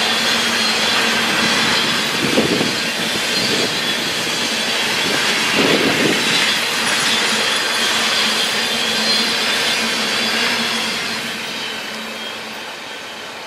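Freight train of empty tank cars rolling past: a steady rumble and rail noise, with two louder knocks from the wheels about two and a half and six seconds in. It fades near the end as the last cars pull away.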